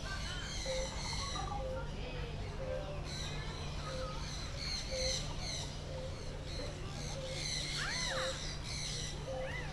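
Several birds calling together: busy high chattering calls, a short low note repeated about once a second, and a pair of rising-and-falling calls about eight seconds in, over a steady low hum.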